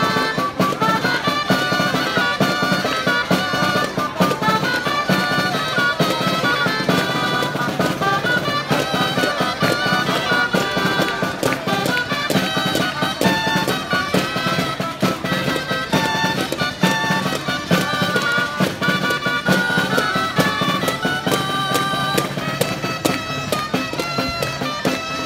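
Traditional folk dance music: reedy wind instruments play a melody over a drum beat.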